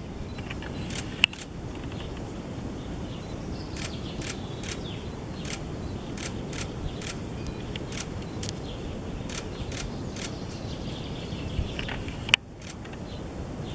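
Outdoor ambience: a steady low rumble with short, sharp high ticks every second or so, and a louder click about a second in and again near the end.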